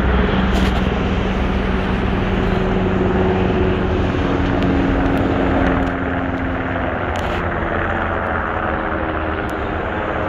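Aircraft flying overhead: a steady rushing engine noise with a low hum that eases slightly about halfway through.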